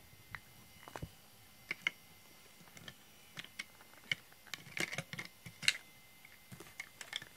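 A scattering of light, sharp clicks and ticks at irregular intervals, thickest in the middle.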